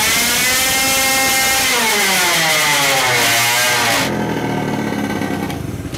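Supercharged 50cc two-stroke engine on a dyno, held at high revs around 12,000 rpm. About two seconds in, the revs fall away in a long descending whine. Around four seconds in, the high-pitched engine note cuts off abruptly, leaving a quieter low sound as it slows. The builder says it is still getting too much fuel at full throttle.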